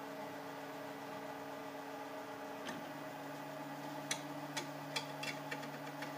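3D printer's stepper motors running as the print head and heated bed move, a set of steady tones that shift in pitch about two and a half seconds in. Several sharp clicks come near the end.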